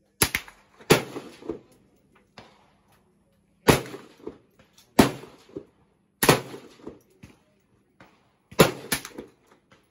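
Rifle fire at an outdoor firing range. About seven sharp, loud shots come at uneven spacing, two of them close together near the end, with fainter shots between them.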